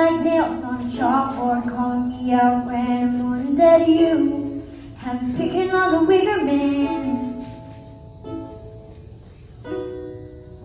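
A young girl singing a song to her own ukulele accompaniment. Partway through, the voice drops out and the ukulele plays on alone with single plucked notes that ring and fade, then a new strummed chord near the end.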